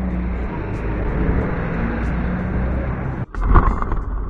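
A vehicle engine runs steadily at low speed, with road and street noise. About three seconds in, the sound drops out for an instant and comes back louder.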